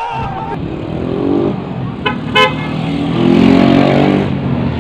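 A motor vehicle engine rising in pitch as it speeds up, with two short horn toots about two seconds in.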